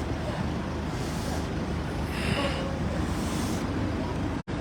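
Steady rumble of road traffic and vehicle engines, with a hiss that swells twice in the middle, and a brief drop-out to silence near the end.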